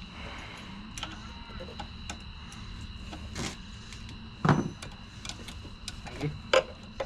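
Scattered clicks and clanks of metal hand tools being worked and handled, with one sharper knock about four and a half seconds in and a few more near the end.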